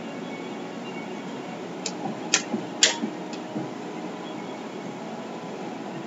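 A cluster of short sharp slaps and knocks about two seconds in, the two loudest half a second apart, over a steady hiss: a person's hands and feet striking a carpeted floor during a fast agility-ladder and push-up drill.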